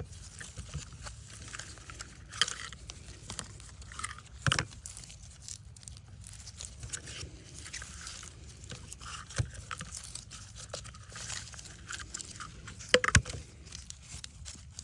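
Close-up handling noise from working with small parts and tools: crinkling, scraping and light clicks over a steady low hum. There are a few sharp knocks, about two and a half and four and a half seconds in, and the loudest one about a second and a half before the end.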